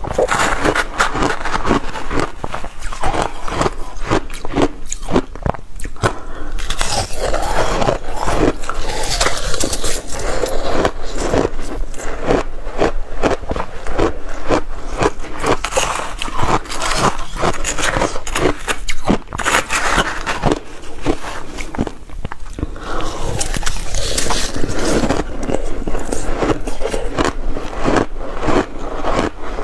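Close-miked chewing of crushed ice with passion fruit pulp: dense, irregular crunching and crackling, with a metal spoon scraping and scooping into the ice between bites.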